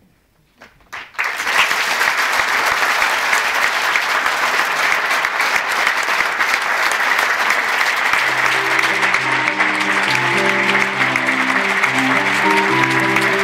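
Theatre audience applauding: dense, steady clapping that starts about a second in as the play ends. About eight seconds in, music with a low bass line comes in under the applause.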